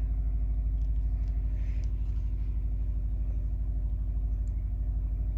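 Steady low mechanical drone with a slight regular pulse, like an engine or motor running, and a few faint clicks over it.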